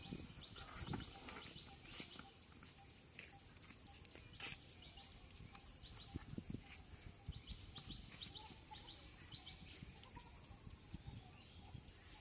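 Faint outdoor ambience with a bird's short, high chirps repeated several times a second in a few separate runs, along with scattered soft clicks and knocks.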